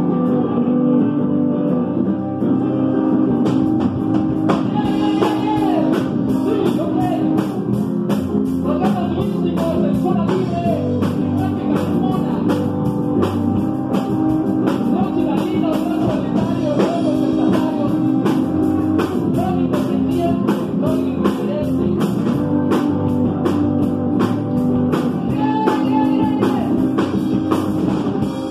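Live rock band playing, with electric guitar, bass guitar and drum kit. The drums come in about three to four seconds in, after the guitar and bass.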